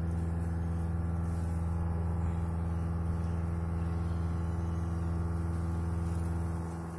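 Electric motor of a homemade remote-controlled pool surveillance robot running with a steady hum, which drops off near the end.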